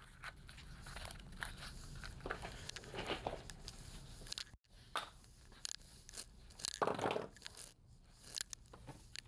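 Faint rustling, crinkling and small clicks and knocks of items being handled and moved on a workbench, with a louder scraping rustle about seven seconds in.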